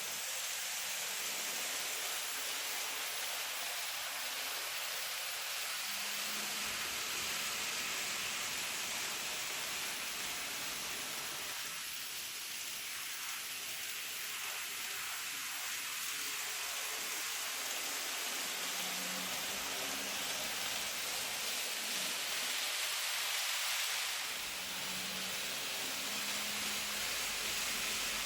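N gauge model trains running on the layout's track: a steady rushing hiss of wheels rolling on the rails, with a low motor hum that fades in and out as the trains pass.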